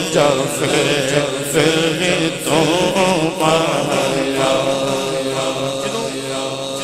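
Man singing a Punjabi devotional rubai in long, wavering melismatic phrases over a steady low drone.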